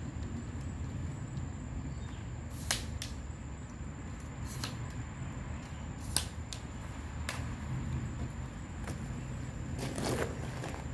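Scattered sharp clicks and taps, about seven spread unevenly over several seconds, over a low steady rumble.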